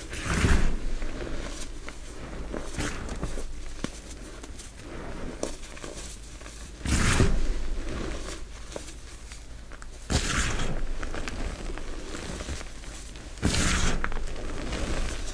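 Hands crushing and scooping soft, crumbled gym chalk and reformed chalk pieces: a steady dusty crunching and rustling, with four louder crunches, one near the start and three more in the second half.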